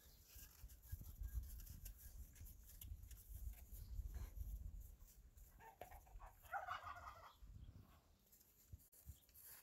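A single short, warbling animal call about two-thirds of the way through, over a faint low rumble.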